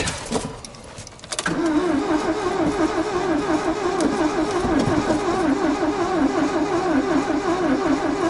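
Starter motor cranking the Ford Transit's Sierra 1.6 four-cylinder petrol engine with an even rhythm for several seconds, starting about a second and a half in, without it catching. The owner takes it to be flooded with LPG from a frozen gas reducer.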